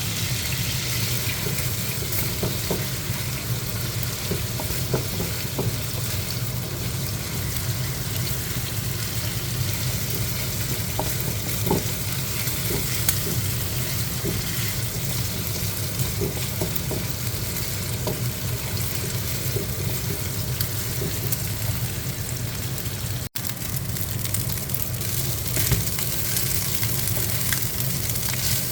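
Food frying in a hot pan, a steady sizzle with scattered light clicks. The sound drops out for an instant about three-quarters of the way through.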